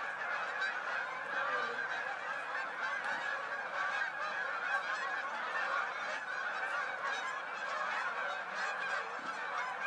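A large flock of geese flying overhead, many birds honking at once in a dense, unbroken chorus.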